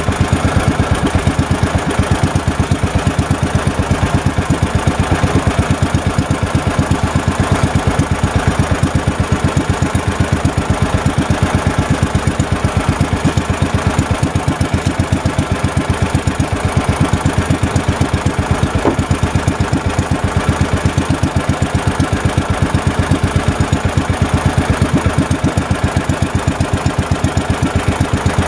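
Small engine of a motorized outrigger boat running steadily under way, with an even, fast pulsing beat.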